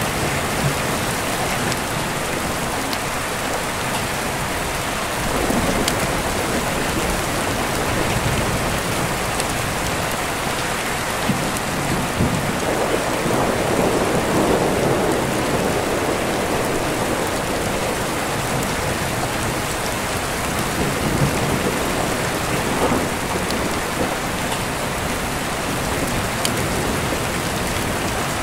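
Steady rain falling with deep rolling thunder, which rumbles a few times and swells into its longest, loudest roll about halfway through.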